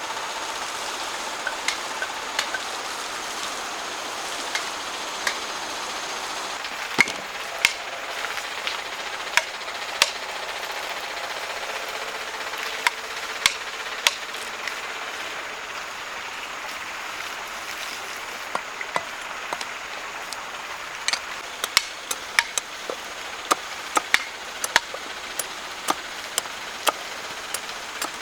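Hand tools knocking on wood in sharp, irregular strikes, sometimes several in quick succession, over a steady rushing background.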